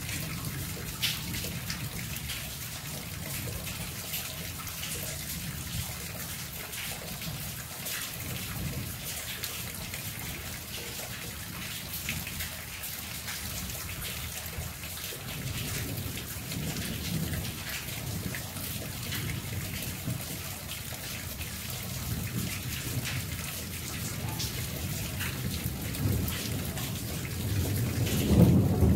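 Monsoon rain falling steadily, a hiss dotted with the ticks of single drops. Under it a low rumble comes and goes and builds near the end.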